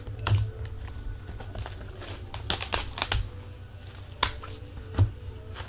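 Trading cards and hard plastic card cases being handled and set down: scattered clicks and crinkles, busiest about halfway through, over a low steady hum.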